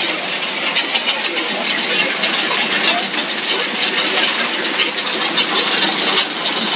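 Core-filled snack extruder production line running: a loud, steady machine noise with a hiss, as the extruded rope comes out of the die.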